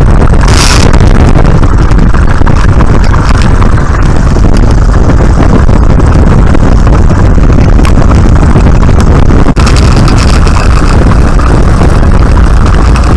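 Open-cockpit biplane's engine and propeller running loud and steady on the ground, with wind rushing over the microphone. The sound breaks off for an instant about two-thirds of the way through.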